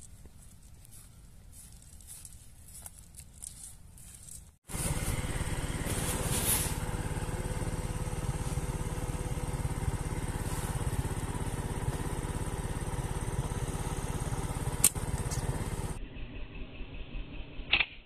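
An engine running steadily, starting abruptly a few seconds in and lasting about eleven seconds, with one sharp snap near its end.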